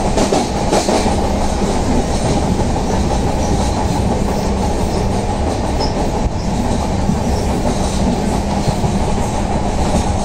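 Mandavi Express passenger train running on the Konkan Railway, heard from aboard: a loud, steady rumble of wheels on the rails with a steady low hum.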